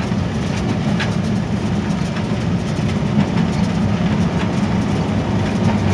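HBU-20 diesel-electric locomotive running steadily under way, heard from inside the cab, with a low rumble and a few faint clicks.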